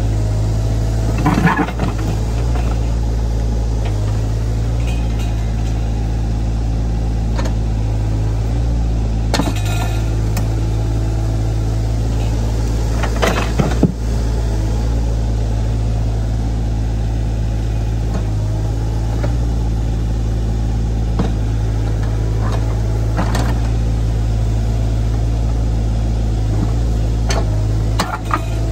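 Sany SY35U mini excavator's diesel engine running steadily while it digs, with a few clanks and scrapes of the steel bucket and thumb against rock and dirt, the sharpest about halfway through.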